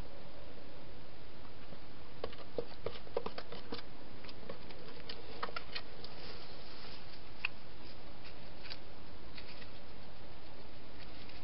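Hedgehog feeding and moving about in a clear plastic feeding box and the grass beside it: scattered small clicks and crackles, thickest about two to four seconds in, over a steady microphone hiss.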